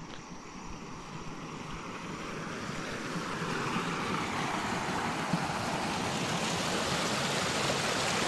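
Small stream of water rushing and splashing over rocks, growing louder over the first few seconds and then holding steady.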